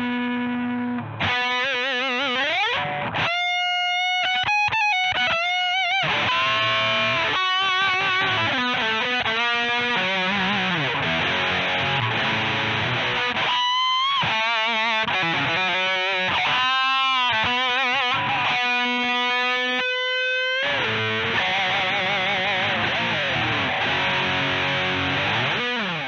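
Electric guitar played through an iSet mini distortion pedal with heavy, saturated gain: a lead riff full of string bends and wide vibrato, broken by a few short choppy stops, then settling into a long held chord that rings out.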